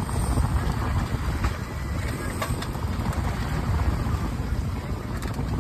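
Steady low rumble of a boat's four outboard motors running, with water churning around the stern.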